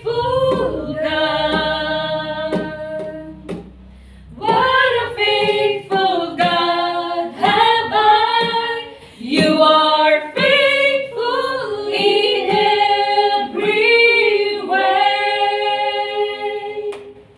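A small group of women singing a worship song together, in phrases of held notes, with a brief pause about four seconds in and a long held note near the end.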